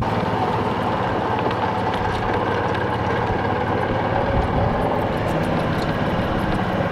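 Golf cart driving along a paved cart path: a steady low motor drone with road noise from the ride.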